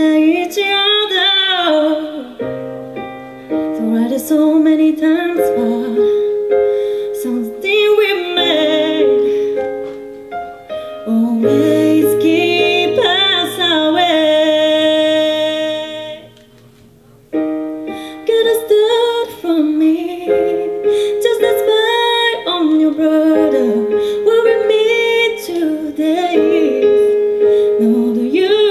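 A woman singing while accompanying herself on a Yamaha CP digital stage piano. The music breaks off for about a second a little past the middle, then resumes.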